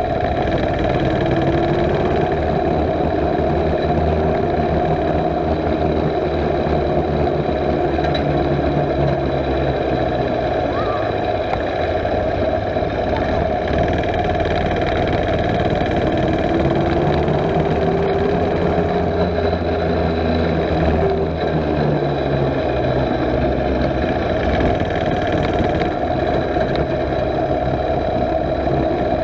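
Mini bike's small gas engine running under way, its pitch slowly rising and falling a few times as the throttle opens and eases off.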